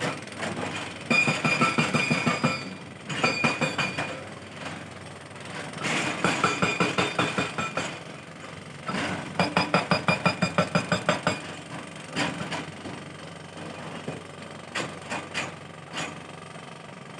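Tata excavator at work: several bursts of rapid, even metallic clanking, about ten knocks a second, each lasting one to two seconds, with a high squeal during the bursts. Between the bursts there is a quieter machine running sound.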